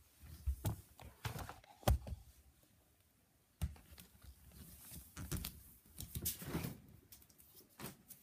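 Close handling noise: irregular knocks, bumps and rustling as things are moved about right against the phone, with a brief pause about three seconds in.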